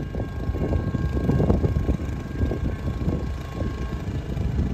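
Wind buffeting the microphone, an irregular low rumble, with two faint steady tones in the background that stop about four seconds in.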